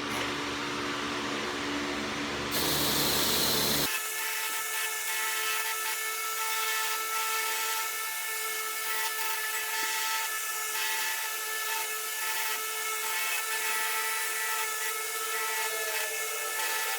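Power tool with a spinning wire brush, running with a steady high whine while rust is brushed off steel pliers. The sound changes abruptly about four seconds in, then carries on as an even whine with several steady tones.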